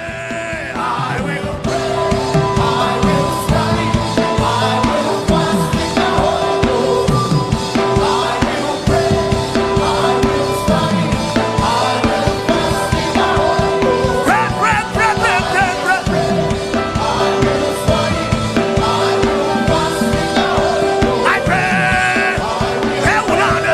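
Gospel worship music: a band with drum kit plays loudly and steadily, a keyboard note repeating in held phrases, with singing voices coming in around the middle and again near the end.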